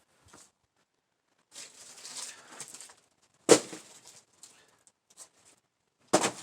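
A rustling scrape, then two sharp knocks about two and a half seconds apart, the second near the end.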